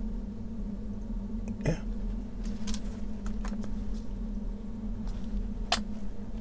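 A few light clicks and taps of small plastic model-kit parts being handled and fitted together, over a steady low hum.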